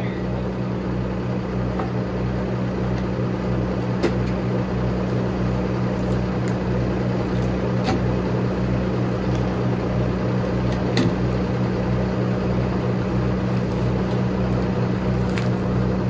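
Circle sawmill's engine idling steadily, with a low throb that pulses about twice a second. A few sharp knocks as a log is rolled onto the deck.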